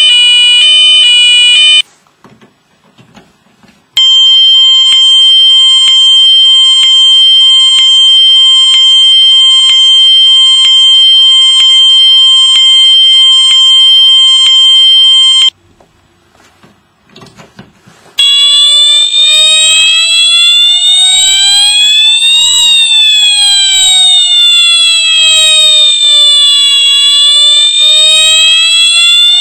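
Siemens U-MMT-MCS multi-tone fire alarm horn cycling through its tones: a fast alternating tone that cuts off about two seconds in, a pause, a steady horn tone chopped into short pulses for about eleven seconds, another pause, then a slow siren wail rising and falling.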